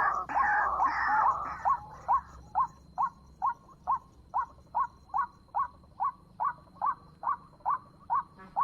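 White-breasted waterhen calling: harsh, loud croaking notes for the first second and a half, then a long run of short single notes, a little over two a second.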